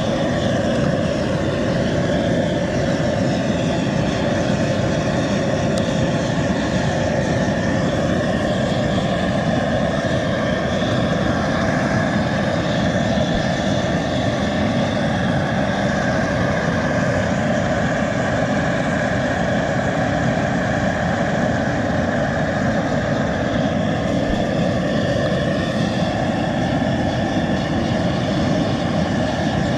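Propane jet burner of a crawfish boiler running steadily, an even, continuous rushing roar that neither rises nor falls.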